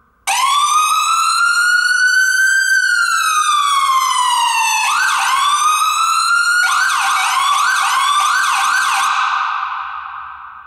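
Whelen electronic ambulance siren through a German-made speaker. It starts suddenly and runs one slow wail, rising then falling in pitch. About five seconds in it switches to a mix of wail and faster repeated yelp sweeps, which fade out near the end.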